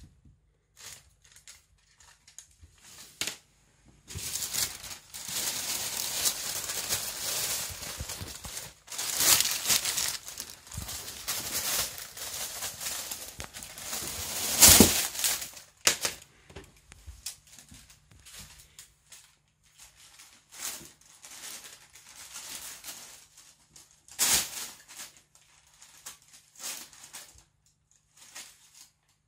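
Paper bag rustling and crinkling as a cat paws at it and pushes into it. A dense run of crackling fills the middle, with one loud crunch near the end of it, followed by scattered short rustles.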